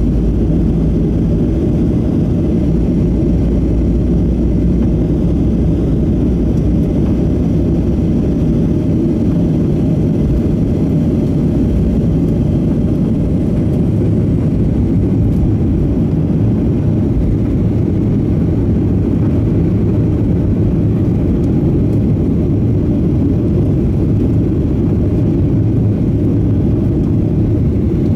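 Cabin noise of a Boeing 737-700 on its takeoff roll and initial climb: the CFM56-7B engines at takeoff thrust over heavy runway rumble, heard from a window seat over the wing. A steady low hum grows from about halfway through, as the jet lifts off and climbs.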